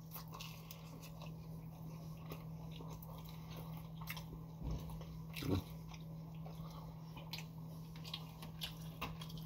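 A person chewing and biting food close to the microphone: scattered soft, wet mouth clicks and crunches, over a steady low hum.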